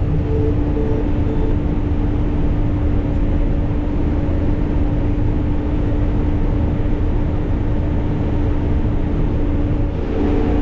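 Cotton stripper running steadily under load while harvesting: a constant low engine and machinery drone with a steady hum on top.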